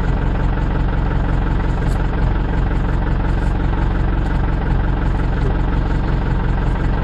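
A vehicle's engine idling steadily, an even low hum that holds the same speed throughout.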